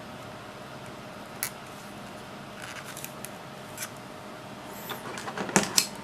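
Sharp clicks and snaps of the plastic front-panel parts of an HP 3245A being handled on the bench: a single click early, a few light ticks in the middle, then a burst of loud snaps near the end. Steady background noise underneath.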